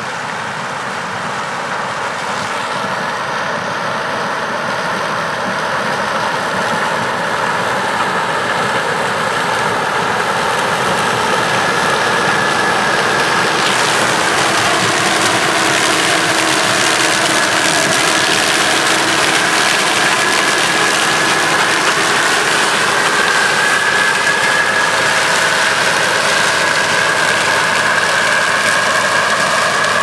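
New Holland TX66 combine harvester running under load as it harvests corn, its diesel engine and threshing machinery making a continuous drone. The sound grows louder over the first dozen seconds as the machine draws closer, then holds steady with a constant high whine.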